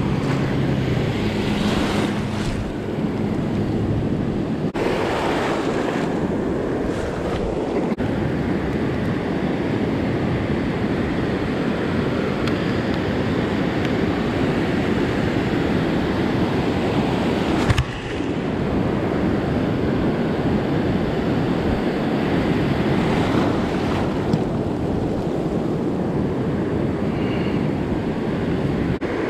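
Ocean surf washing and breaking in the shallows, with wind buffeting the microphone: a steady loud rush of noise that changes abruptly a few times.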